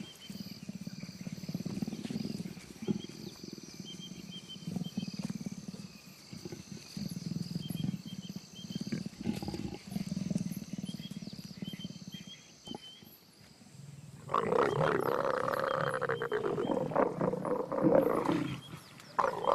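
A mating pair of leopards growling. Low, rumbling growls come in a slow series for the first dozen seconds, with crickets chirping faintly. Then, about fourteen seconds in, a loud, harsh snarling growl breaks out and lasts several seconds, as the pair breaks apart at the end of a painful copulation for the female.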